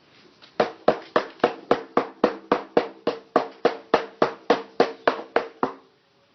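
Rapid, even hammering, about four blows a second, as a mallet drives a flat-blade screwdriver used as a chisel to chip up old tile. A ringing tone carries on under the blows, and they stop shortly before the end.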